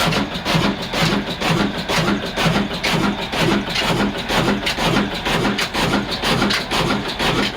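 18 hp single-cylinder diesel 'black engine' running steadily on diesel, with an even beat of exhaust pulses a few times a second, as it drives a saw machine.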